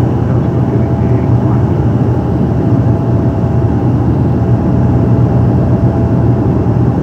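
Steady cabin drone of a Dash 8 turboprop airliner's engines and propellers heard from inside the cabin: an even, deep hum with a fainter higher tone running above it.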